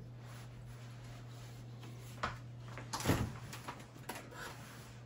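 Light handling clicks, then a knock about three seconds in as a wine glass is set down on a microwave's top, over a steady low hum.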